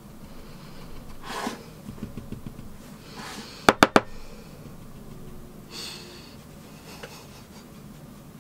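Makeup items being handled at a desk: soft rustles and swishes, with three quick, sharp taps a little under four seconds in, the loudest sound.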